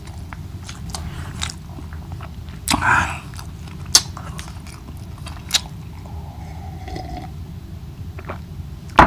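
Close-miked chewing and mouth sounds of a man eating by hand: wet chewing with scattered sharp clicks and lip smacks, a brief louder smack about three seconds in, over a steady low background rumble.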